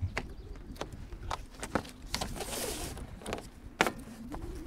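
A scattered series of about a dozen sharp clicks and knocks over a low outdoor rumble, with a brief hiss near the middle.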